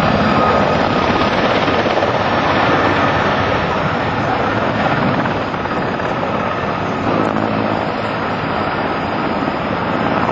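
Sikorsky S-64 Skycrane firefighting helicopter flying low overhead, a steady rotor and turbine noise.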